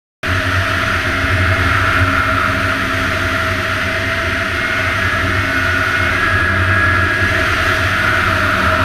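Snowmobile engine running steadily under way across open snow. The sound cuts in abruptly about a quarter second in, after silence.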